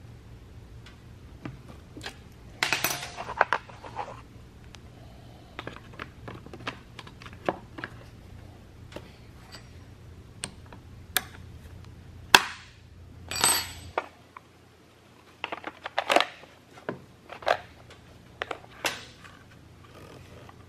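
Scattered clicks, taps and clatters of hand work on a chainsaw: a small socket ratchet clicking on the saw, and its plastic top cover and air filter being handled. A quick run of clicks comes a few seconds in, and a single sharp knock comes about twelve seconds in.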